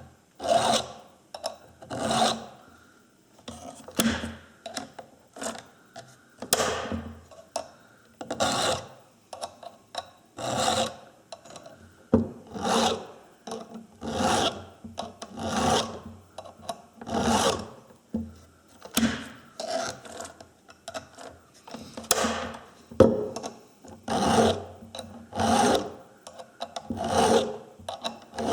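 A file rasping across a chainsaw chain's cutters as the chain is hand-sharpened, in separate strokes roughly one every second or two.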